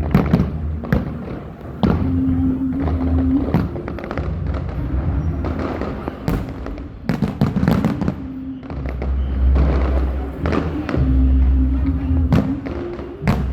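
Fireworks going off: many sharp bangs and crackles at uneven spacing over a low rumble.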